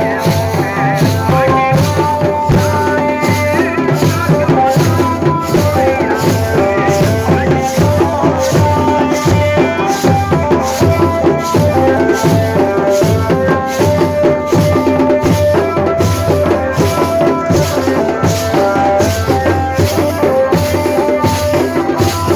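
Jaunsari Harul folk dance music: a steady drum beat about twice a second with a rattle, under a melody of held notes.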